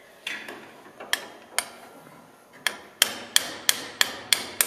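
Hammer striking locking pliers clamped onto a cotter pin in a tank's track tension adjuster, to work the pin out. Sharp metallic clinks with a short ring: a couple of spaced taps, then steady blows about three a second from about three seconds in.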